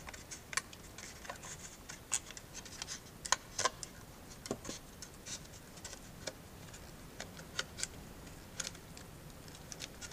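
Tin snips cutting through a thin white plastic wingtip adaptor: a run of irregular sharp clicks and snaps as the blades bite and close, loudest about three and a half seconds in.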